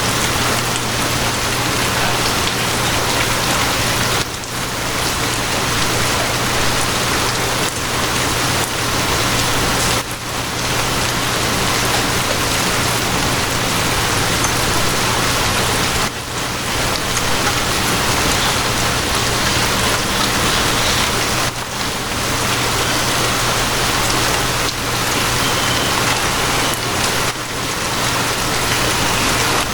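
Steady, dense rain with a constant low hum beneath it. The rain dips briefly about every six seconds.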